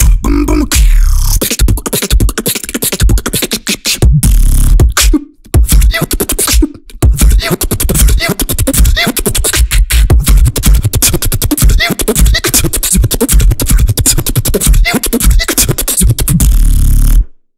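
Beatboxing: a loud, fast beat made entirely with the mouth, with deep bass hits under dense sharp clicks and percussive hits. It breaks off briefly about five and again about seven seconds in, and it cuts off suddenly near the end.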